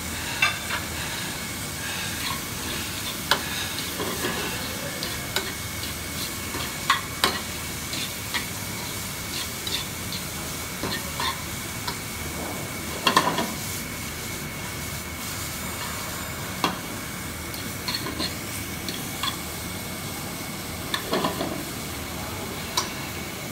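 Julienned vegetables (carrots, chocho, onions, bell and Scotch bonnet peppers) sizzling in oil in a hot frying pan over a gas burner, stirred and tossed with metal forks that click and scrape against the pan. The stirring is heaviest about 13 s and 21 s in.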